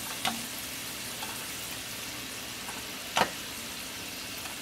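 French-fry potato sticks deep-frying in oil in a pan: a steady sizzle near the end of their first fry. A faint sharp tap comes just after the start and a louder one about three seconds in, as chopsticks knock the pan while fries are lifted out.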